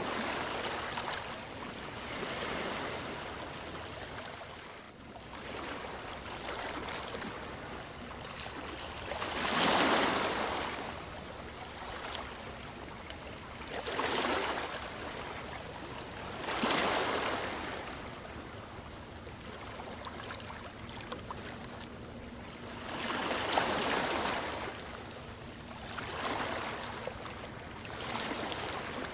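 Ocean waves washing in, each one swelling into a loud rush of surf and then easing back, several times with a few seconds between them.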